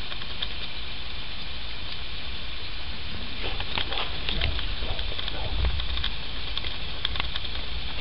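Wind on the microphone: a steady crackling hiss over a low rumble that swells a little over halfway through, with a few faint clicks.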